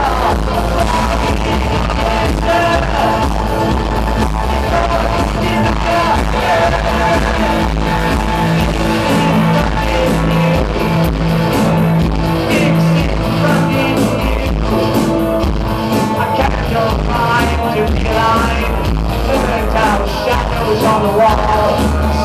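Electro-industrial band playing live through a club PA: dense electronic music with a heavy bass line and a male lead vocal over it.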